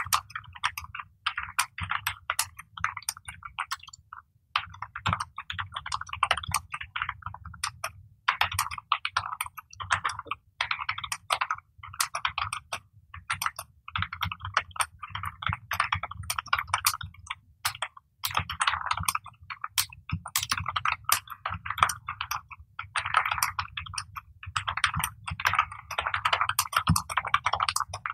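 Fast touch typing on a computer keyboard at about 60 words per minute: rapid runs of key clicks, one run per word, with brief gaps between them.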